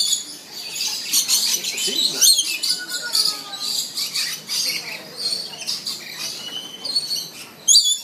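A flock of lories and lorikeets calling: many short, shrill calls overlapping without a break, with a loud pair of calls near the end.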